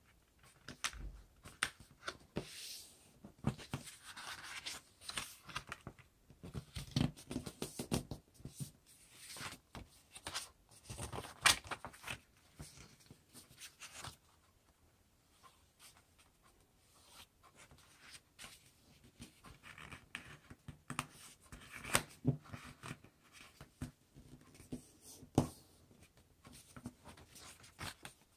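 A sheet of paper being folded and creased by hand against a tabletop: irregular crinkling and rustling with sharp, crisp creasing strokes, going nearly quiet for a few seconds about halfway through.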